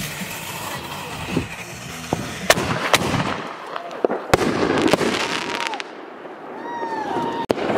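Consumer fireworks going off: steady hissing and crackling of burning fireworks, broken by four sharp bangs as shells burst overhead.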